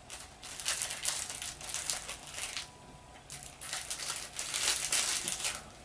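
Crinkly plastic wrapping of a donut package being handled and pulled open, in irregular crackling bursts with a brief pause about halfway through.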